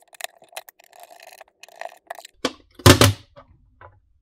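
Small precision screwdriver turning a screw out of a plastic case, a faint grinding creak with many small clicks, then a few knocks and a louder clatter about three seconds in as the plastic housing is handled.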